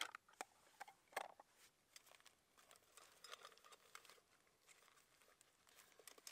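Faint handling sounds of camp cookware: a few light clicks and soft rustling as a titanium cook pot is worked out of its stuff sack.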